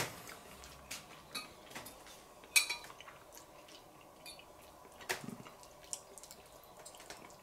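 Metal fork clinking and scraping against a plate, a few scattered clinks with the sharpest about two and a half seconds in.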